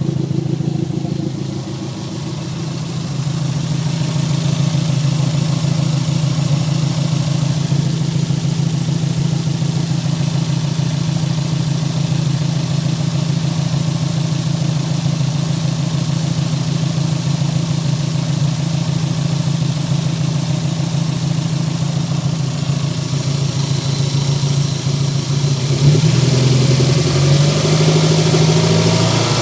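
Toyota MR2 Turbo's 3S-GTE turbocharged four-cylinder engine idling unevenly, misfiring with popping from the exhaust. It gets louder near the end.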